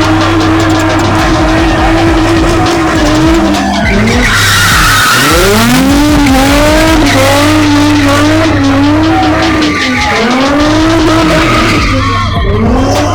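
Nissan 350Z drifting: the engine runs at high revs while the tyres screech. The revs dip and climb back about four seconds in and again near ten seconds, and waver in between.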